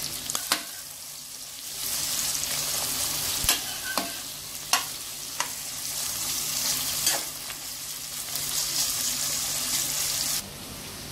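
Sliced onions sizzling in hot oil in a pressure cooker as they are stirred, the spoon knocking and scraping against the pot several times. The sizzle drops sharply near the end.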